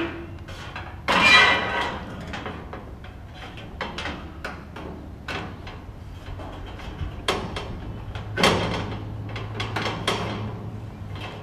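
Lattice fence-extension panel clanking and scraping against the top of a Colorbond steel fence as it is lowered and seated into place, with a long scrape about a second in and several more knocks and rattles later.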